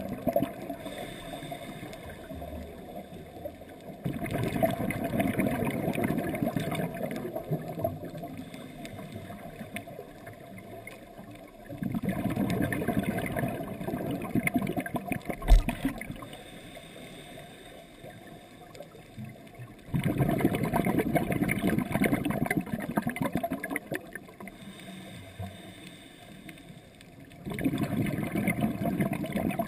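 Scuba regulator exhaust bubbles heard underwater: four long bubbling bursts of exhaled breath, about one every eight seconds, with quieter stretches between, and one sharp knock about halfway through.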